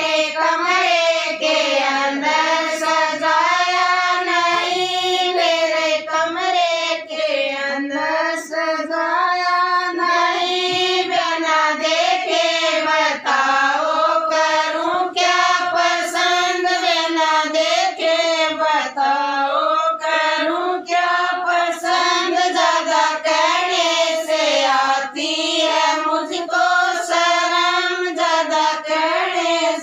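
Group of women singing a Haryanvi sangeet folk song (geet) together, one continuous unison melody with no instruments.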